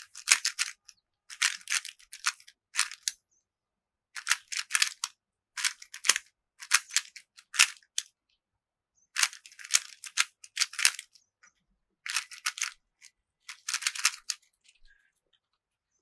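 Plastic 3x3 speed cube turned quickly with fingertricks, including left-hand D′ turns. The layers click and rattle in about nine quick runs of turns, with short pauses between them.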